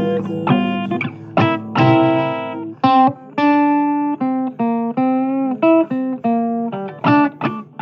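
Instrumental blues guitar break from a recording: a string of single plucked notes and short runs, some bent in pitch, over a sustained low note.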